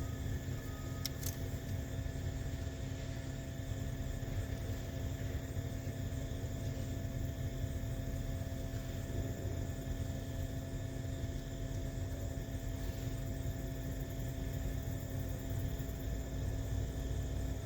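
Steady low rumble with a faint constant hum underneath, unchanging throughout, with no distinct knocks or clicks.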